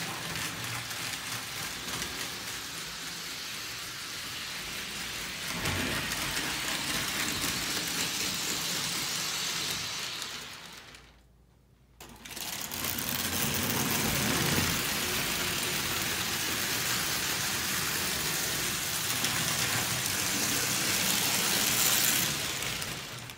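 Pre-war Lionel O-gauge tinplate electric trains running on three-rail track: a steady mechanical whir of motors, gears and wheels. It dies away for about a second midway, starts up again louder, and stops near the end.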